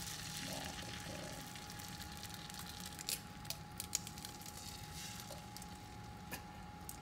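Eggs frying on a hot electric griddle: a steady, fairly quiet sizzle, with a few sharp clicks about three to four seconds in.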